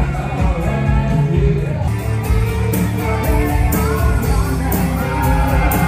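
Pop-rock band music with singing, from a band with guitars, drums and saxophone. A steady beat of cymbal strokes comes in about two seconds in.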